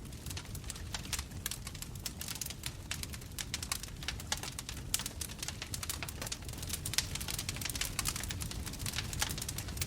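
Bonfire burning: dense, irregular crackles and pops from the burning wood over a steady low rumble of the flames.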